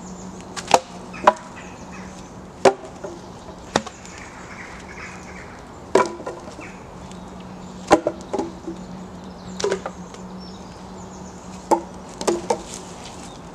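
Wood being chopped with a hand-held blade: about a dozen sharp, irregular chops, some coming in quick pairs or threes, as branches are cut.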